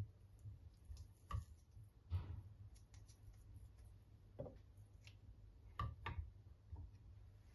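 Faint handling sounds of raw chicken on a wooden cutting board: a few soft taps and clicks, spaced irregularly over a low steady hum.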